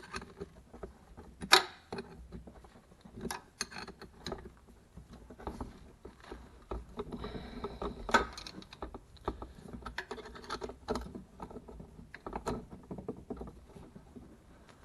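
Hand tools working a clutch hydraulic pipe fitting: irregular small clicks and knocks, with one sharp click about a second and a half in.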